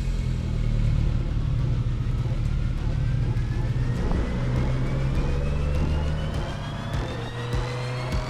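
A motor vehicle's engine running steadily, with a thin high tone rising slowly in pitch through it.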